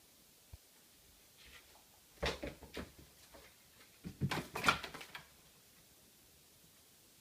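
Two short clusters of knocks and rattles, about two seconds in and again about four seconds in, the second louder, as a playing cat knocks objects about.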